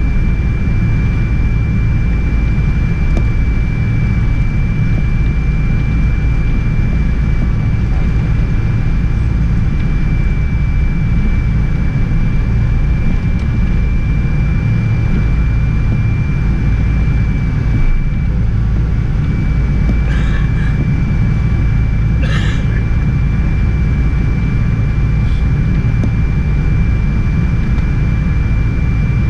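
Boeing 777-300 cabin noise while taxiing: its Rolls-Royce Trent 800 engines at idle and the airframe rolling give a steady low rumble under a thin, steady high whine.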